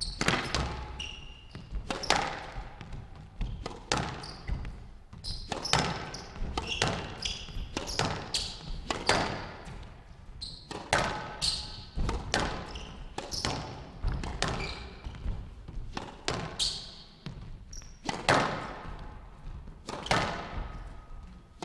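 Squash rally on a glass court: a steady run of sharp ball strikes, racket on ball and ball off the walls, one every second or so, each echoing in the hall.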